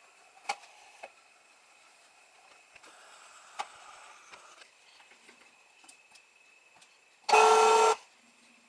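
Faint whir and a few light clicks from the small CNC mill as its table moves under servo control, then, a little over seven seconds in, a loud electronic beep lasting under a second.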